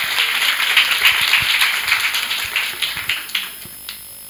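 Audience applauding, many hands clapping at once, with the clapping fading out near the end.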